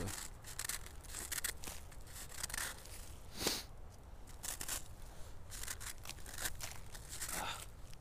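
Irregular crisp rustling and crunching as a hand and nylon-cotton jacket sleeve brush over icy, crusted snow around a small plant, with one sharper crunch about three and a half seconds in.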